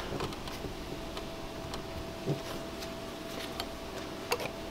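Faint, scattered clicks and ticks of a knife blade prying along the seam of a plastic tail light housing, working at the warmed sealant, over a faint steady hum.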